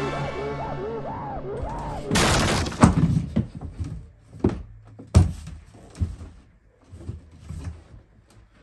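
A pitched tone with a wavering, looping pitch fades out over the first two seconds. A short crash-like burst follows, then a run of sharp knocks and thumps as hands push and bang against a pair of panelled doors.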